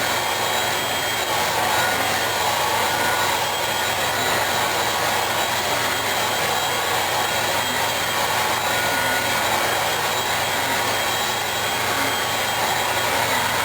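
Hoover Flair stick vacuum running steadily as it sucks up parsley, a steady rushing noise with a thin high whine on top. Its filter is clogged with shredded paper, which slows its pickup.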